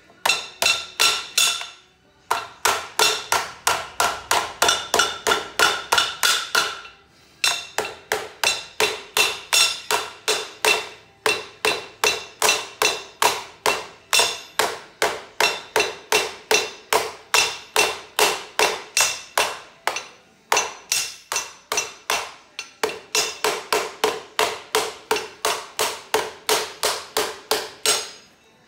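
Hand hammer pounding sheet steel from a front tine tiller's chain case on an anvil. Rapid, even metallic blows at about three a second, each with a brief ring, with a few short pauses.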